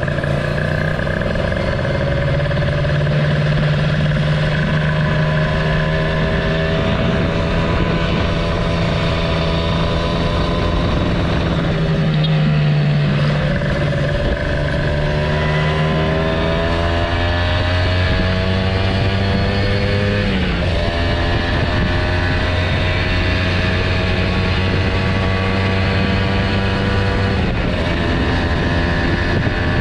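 Kawasaki Ninja motorcycle engine running on the move. Its pitch climbs slowly as it speeds up and dips sharply a few times before rising again.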